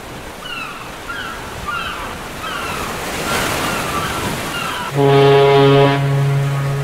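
Ocean surf washing with gulls giving short falling cries, then about five seconds in a foghorn sounds one long, low, steady blast, the loudest sound here.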